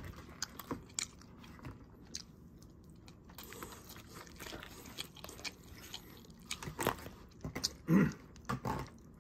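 Close-up eating: chewing a mouthful of seafood paella, with a metal fork clicking and scraping in its foil tray, and a short 'mm' of the voice about eight seconds in.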